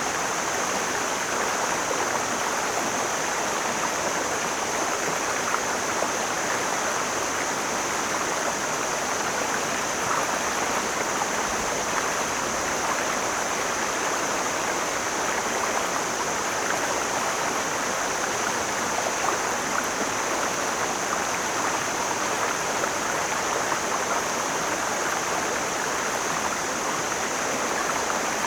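Mountain stream flowing: a steady, even rush of running water.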